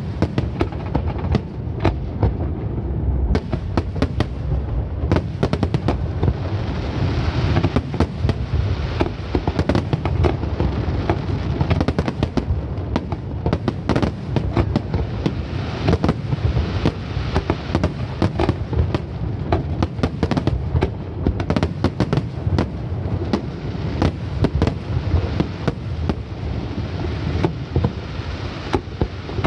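Aerial fireworks display in full barrage: shell bursts go off several times a second without a break, over a continuous deep rumble.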